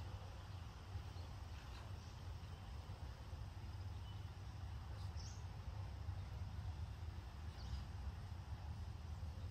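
Steady low rumble of wind on the microphone in an open field, with a few short, high bird chirps scattered through it.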